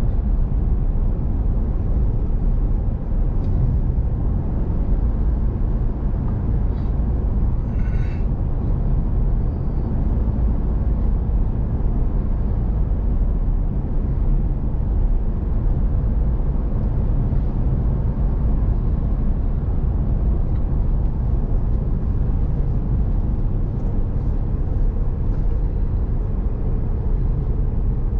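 Steady low rumble of a truck driving at road speed, engine and tyre noise heard from inside the cab.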